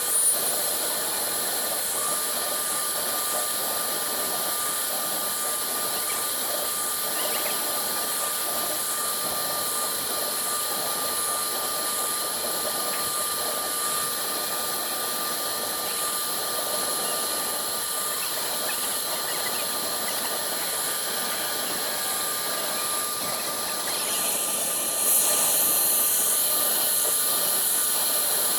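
Woodworking CNC router running, its spindle and cutter engraving MDF: a steady high whine over cutting noise. It grows louder and harsher about twenty-five seconds in.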